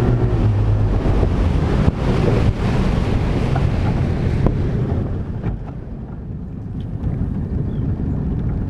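Small fishing boat under way on open water, with wind buffeting the microphone and water rushing past the hull. An engine hum fades out in the first second, and the rush of wind and water eases about five seconds in.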